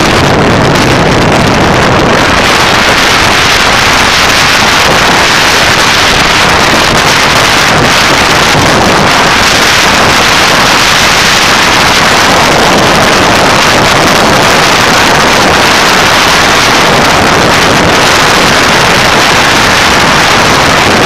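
Loud, steady rush of wind over the microphone of a camera on a moving motorcycle at road speed, covering the engine and tyre noise.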